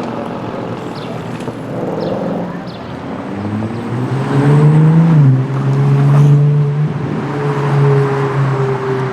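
A car engine accelerating, its pitch rising from about three and a half seconds in, dropping sharply just after five seconds, then holding steady.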